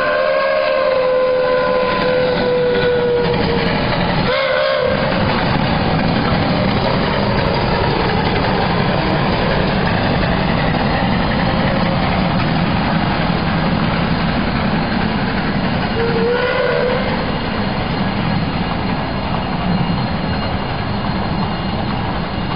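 Tren Turístico de la Sabana passing close by with its horn sounding. A long blast slides slightly down in pitch and ends about three and a half seconds in, a short toot follows a second later, and another short blast comes about sixteen seconds in, all over the steady running rumble of the train.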